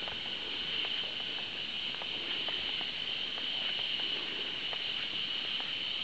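Rainforest insects calling in a steady, high-pitched chorus, with scattered light footsteps of people walking on the walkway.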